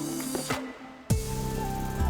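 Background music: sustained instrumental notes with a strong new note about a second in.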